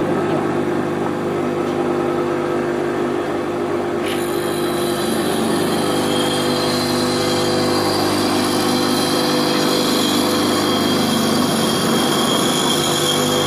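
Bench grinder running steadily while a square-thread lathe tool bit is ground against its abrasive wheel, motor hum under the hiss of steel on the stone. The grinding hiss grows stronger about four seconds in.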